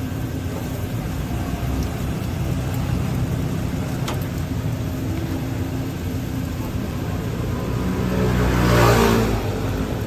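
Steady low rumble of street traffic, with one vehicle passing close, growing louder and then fading about eight to nine seconds in.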